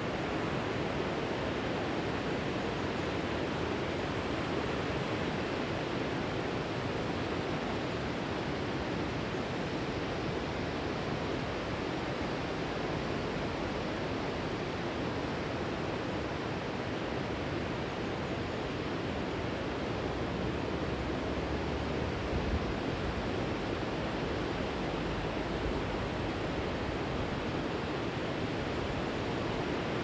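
Steady rush of river water spilling over a long, low weir.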